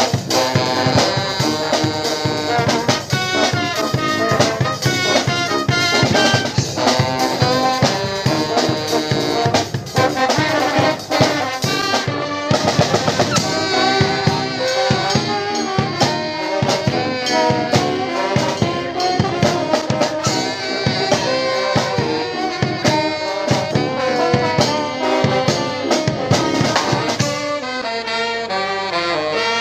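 A brass band playing live: trumpets, trombones and saxophones over a drum kit with a steady beat. Near the end the horns play a falling run.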